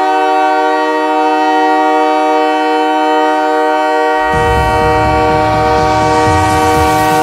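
Montreal Canadiens' hockey goal horn sounding one long, steady, loud blast. About four seconds in, the goal music's low beat comes in under it.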